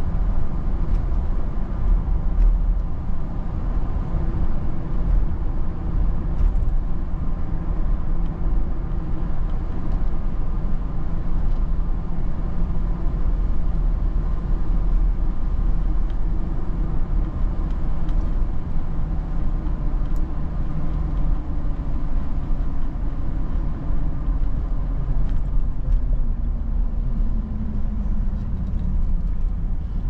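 Cabin road noise of a car driving on wet pavement: a steady low rumble of engine and tyres with a fainter hiss above it. Near the end the rumble falls in pitch as the car slows.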